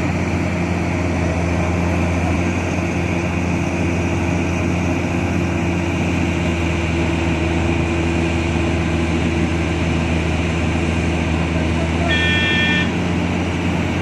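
A truck engine running steadily with a low hum. A short horn blast comes near the end.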